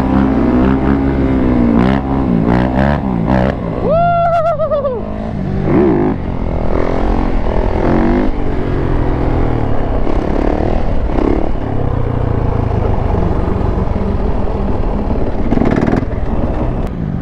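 Dirt bike and ATV engines running and revving up close, the pitch rising and falling with the throttle; one sharp rev about four seconds in.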